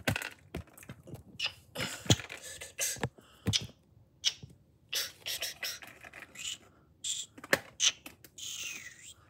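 Plastic Lego pieces clicking and rattling as they are handled and pressed back onto a brick build: irregular sharp clicks and taps with light plastic rustling.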